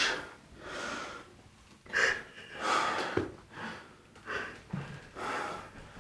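A man sobbing: short gasping, breathy sobs coming in bursts about once a second.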